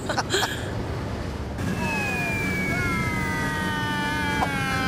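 A descending whistle sound effect of something falling from the sky: several whistling tones slide slowly down in pitch over a rush of air that starts about a second and a half in.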